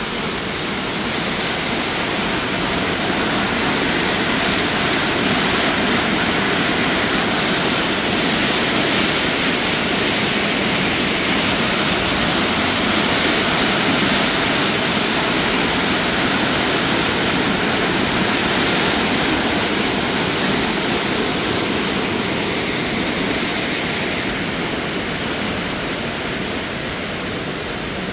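A muddy creek in flood, rushing and churning in whitewater under a bridge: a steady, loud water noise. It grows louder in the first couple of seconds and eases off near the end.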